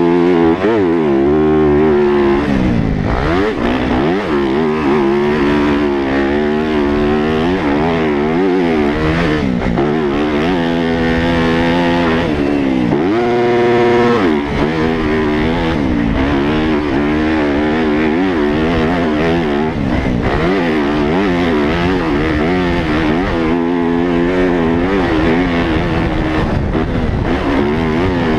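Yamaha YZ250F's 250 cc four-stroke single-cylinder engine, heard from on board, revving up and falling back over and over as the bike is ridden hard around a motocross track. About halfway it holds a steady high rev for a moment, then drops sharply.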